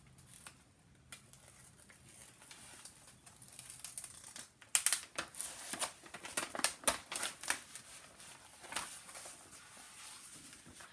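Crinkling and crackling of a rolled diamond painting canvas, with its plastic cover film and paper wrapping, being unrolled and handled. The crackles come thickest and sharpest from about five to seven and a half seconds in.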